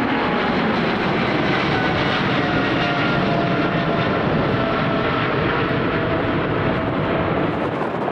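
Jet airliner engines at take-off power: a loud steady roar with whining tones that slowly fall in pitch.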